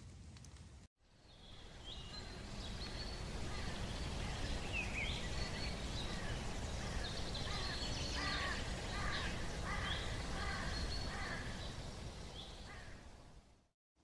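Woodland ambience: many short, quick bird chirps and calls over a steady low rumble. It fades in after a brief silence about a second in, and fades out near the end.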